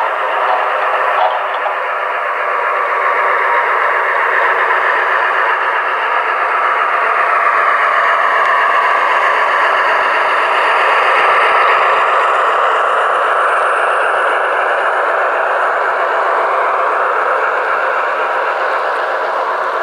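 Model train running along the layout track: a steady rushing of wheels and motor with no deep bass, swelling slightly around the middle.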